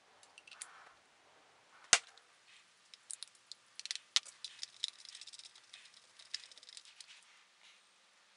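Hands handling small hard objects and a plastic cup: one sharp knock about two seconds in, then a busy run of light clicks and taps for several seconds, thickest toward the middle.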